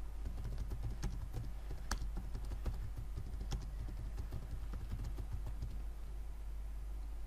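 Typing on a computer keyboard: a quick, irregular run of key clicks that thins out near the end.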